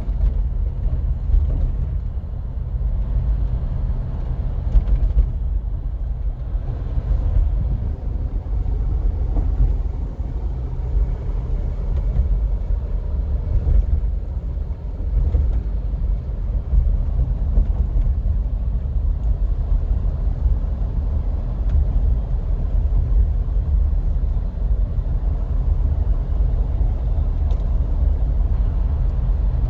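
Inside the cabin of a 2004 Jeep Wrangler Sport cruising at about 30 mph: a steady low rumble of the 4.0-litre straight-six at light throttle and low revs, mixed with road and tyre noise.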